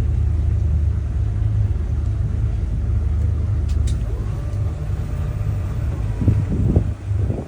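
Yamaha outboard engines running at low speed while the boat manoeuvres under joystick control, a steady low rumble. A few louder low surges come near the end.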